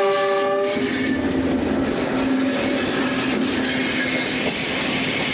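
A train passing close by: the locomotive's horn ends under a second in, then the locomotive and cars run past with a loud rushing rumble and a steady tone from the wheels.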